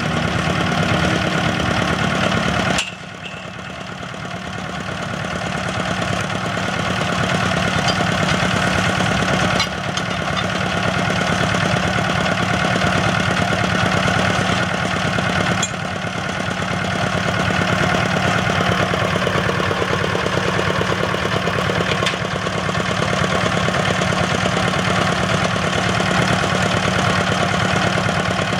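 Engine of a small tracked well-drilling rig running steadily with a low hum. The sound drops suddenly about three seconds in and builds back up over the next few seconds, with smaller dips later on.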